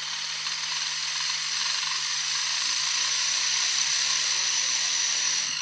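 Hurricane balls, two welded steel ball bearings, spinning on a glass mirror while air is blown on them through a straw: a steady high whir mixed with the hiss of blowing, as the blowing drives them faster.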